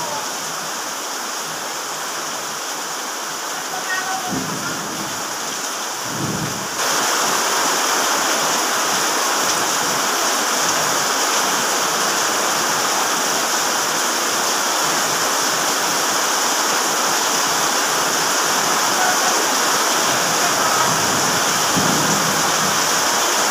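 Heavy rain pouring, a steady loud hiss that turns suddenly louder about seven seconds in.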